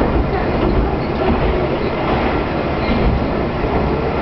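Diesel railcar running along the track, heard from inside the car: a steady, loud rumble of engine and wheels on rail.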